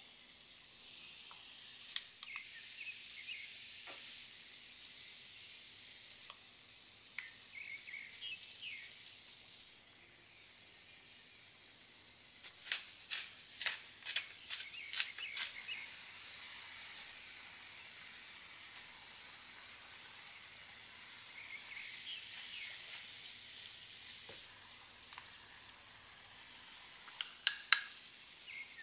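Grated vegetables and ground meat sizzling in a frying pan, stirred with a wooden spoon that now and then clicks against the pan. About halfway through comes a quick run of crackling clicks from a wooden pepper mill grinding over the pan.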